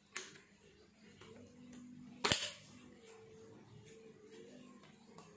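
Metal handling clicks from a shaft assembly with two pillow block bearings and a V-belt pulley being held and turned in the hands: a small click just after the start and a sharp, louder one about two seconds in, over a faint hum.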